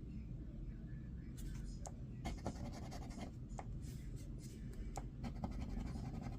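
Scratch-off lottery ticket being scratched in short, irregular strokes as letter squares on a crossword scratcher are uncovered, over a low steady hum.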